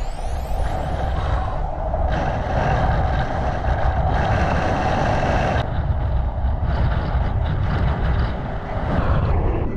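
Strong wind buffeting an action camera's microphone: a loud, continuous low rumble with a rushing hiss that surges and eases every second or two.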